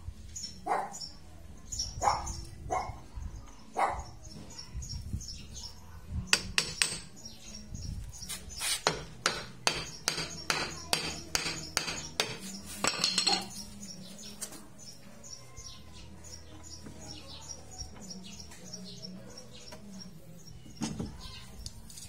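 Hammer striking metal on a car's front suspension, knocking parts loose to free the axle: a few spaced blows, then a quick run of about a dozen blows, then a single knock near the end.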